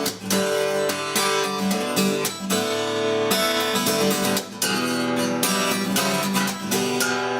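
Strummed acoustic guitar music, with chords struck in a steady rhythm.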